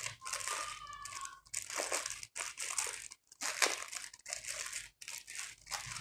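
Packaging crinkling and rustling in irregular bursts as an AIO water cooler is handled and unwrapped.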